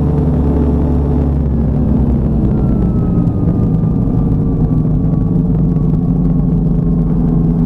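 Light aircraft's piston engine running loudly and steadily, heard through a lav mic inside the pilot's helmet. A faint tone in it slides slowly downward, as the engine is throttled back in a short hop down the runway just before touchdown.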